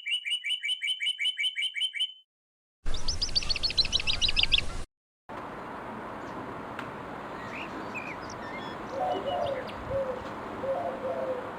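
A rapid run of high pips, then a brief burst of fast high trilled notes, give way to an outdoor recording with faint chirps from small birds. About nine seconds in, a Eurasian collared dove starts cooing in low, repeated phrases.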